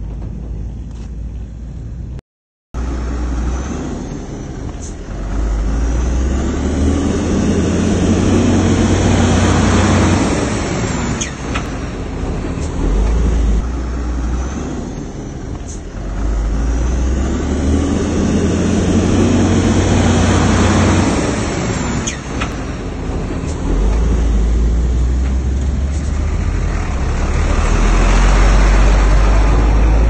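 Heavy diesel construction machinery running, its engine rising and falling with load. The sound cuts out briefly a little over two seconds in.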